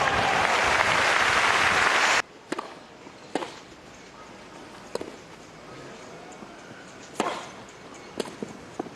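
Crowd applauding, cut off abruptly after about two seconds. Then a tennis rally: sharp racket strikes on the ball and bounces at irregular gaps.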